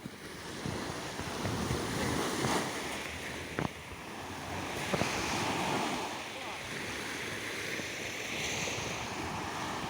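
Small waves washing on the shore of a calm sea, with wind rumbling on the microphone. Two sharp clicks stand out, about three and a half and five seconds in.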